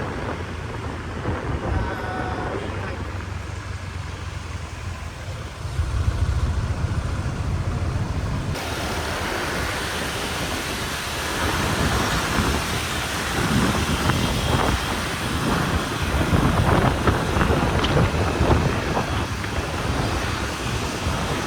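Steady outdoor background noise with a low rumble, like street traffic; it turns fuller and brighter about eight seconds in.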